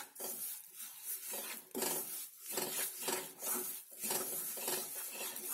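Wooden spatula stirring and scraping a thick gram-flour and sugar-syrup mixture around a nonstick pan, in repeated scraping strokes about once a second, as the syrup is worked into the roasted besan.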